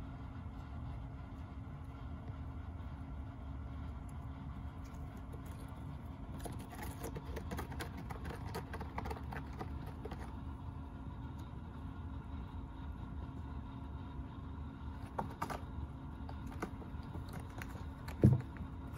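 A kitten's claws raking a corrugated cardboard cat scratcher: a run of quick rasping scratches lasting a few seconds about a third of the way in, with a few more later, over a steady low rumble. A single thump near the end.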